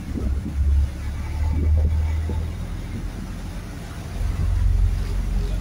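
Motor yacht under way at speed: a steady low rumble of engine and wind on the microphone, swelling and easing a little, over the churn of the wake.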